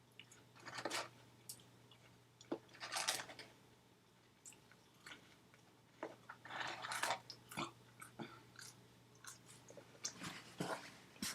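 A person chewing and crunching food close to the microphone, in several irregular crunchy bursts of about a second each, with short pauses between.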